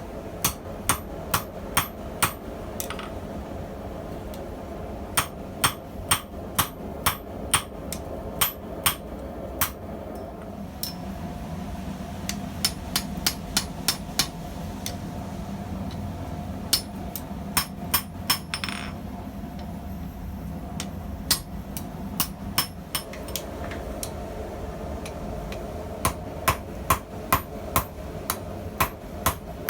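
Blacksmith's hand hammer striking hot YK30 steel on an anvil, ringing blows in runs of about two to three a second with short pauses between runs. A steady low hum runs underneath.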